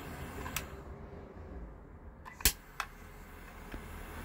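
Trigger clicks of a Glock 18-shaped pistol lighter: a faint click early on, then one sharp, loud click about two and a half seconds in, followed quickly by a softer one.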